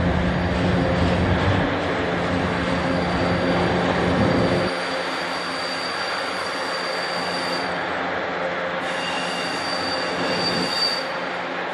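Intermodal freight train's double-stack container cars and trailer flatcars rolling past, a steady rumble of wheels on rail. About five seconds in the deep rumble drops away and a thin, high wheel squeal comes in and holds for most of the rest.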